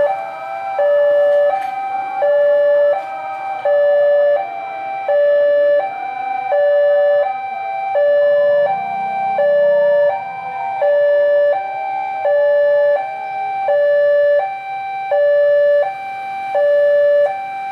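Electronic warning alarm of a railway level crossing, sounding a steady two-tone pattern that alternates between a lower and a higher note, each lasting about two-thirds of a second, to signal that a train is approaching. A fainter wavering tone sounds underneath it through the middle.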